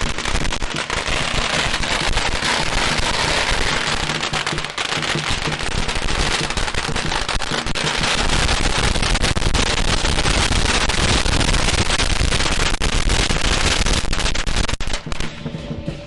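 A long string of firecrackers going off in a rapid, continuous crackle of bangs, thinning out and stopping about a second before the end.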